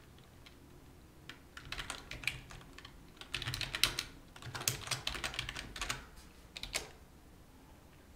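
Typing on a computer keyboard: several quick runs of key clicks, ending with a single separate keystroke a little before the end.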